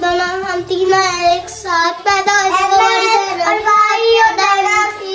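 A child singing a melody in one continuous line of held, wavering notes.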